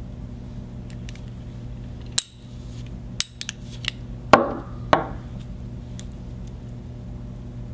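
Sharp clicks from the SL termination tool's stripping blade scoring the outer jacket of a Category 6 UTP cable, about two to four seconds in, then two short scraping rustles as the cut jacket is worked loose by hand, over a steady low hum.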